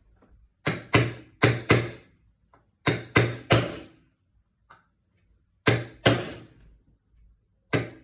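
Hard hammer blows on a metal punch, driving a seized bolt out of a lawn mower wheel: about ten sharp metallic strikes in quick bursts of four, three, two and one. The bolt is stuck fast and does not come free.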